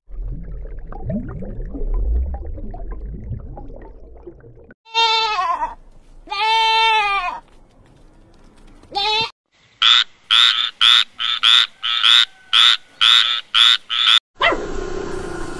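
A low underwater rumble, then a goat kid bleating three times, the middle bleat the longest, each one rising and falling in pitch. Then a frog croaking in a rapid even series of short calls, about three a second.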